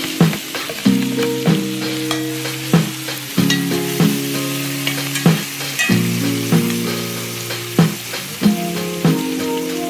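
Sauce sizzling in a hot cast-iron skillet as a metal spoon stirs it, with short clinks of the spoon against the pan. Background music of held chords that change every second or so plays throughout.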